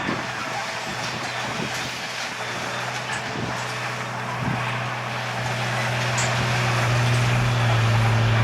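Heavy diesel construction machinery running, a steady low engine drone over mechanical noise that grows louder over the last few seconds.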